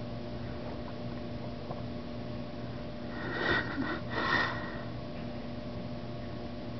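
Two short, breathy sniffs about a second apart, over a steady low hum.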